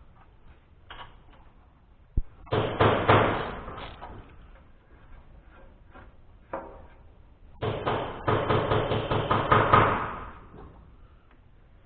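Ratchet wrench clicking in two quick spells, with a few single metal knocks between them, typical of loosening bolts on the engine during teardown.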